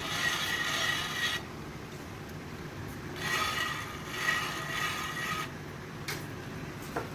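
Two bursts of mechanical scraping, the first about a second and a half long and the second about two and a half seconds, over a steady low hum.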